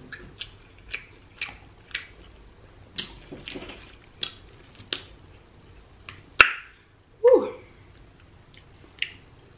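Scattered small clicks and crackles from handling a crispy, breaded deep-fried king crab leg, mixed with mouth sounds. One click about six seconds in is sharper than the rest, and a short falling hummed 'mm' comes about a second later.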